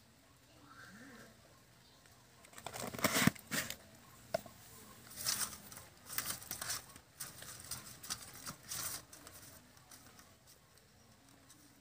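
Hands mixing pieces of rui fish with salt and turmeric: irregular wet handling noises from about three seconds in, with one sharp click, dying away a few seconds before the end.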